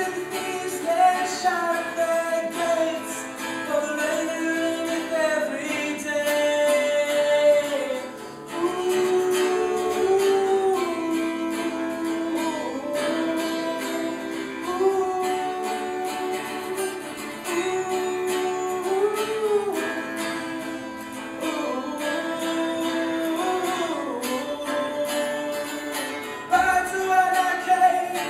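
A solo voice singing a slow, folk-style song melody in long held notes, accompanied on guitar.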